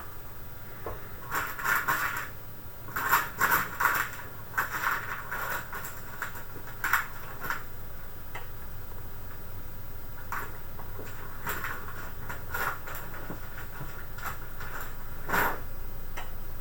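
Hard parts of a PC being handled during an SSD install: irregular runs of short clicks, clatters and scrapes, with a sharper knock near the end.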